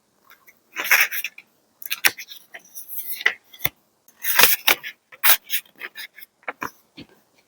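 Paper being handled for a scrapbook journal page: irregular rustling and crinkling, broken by several sharp taps and clicks.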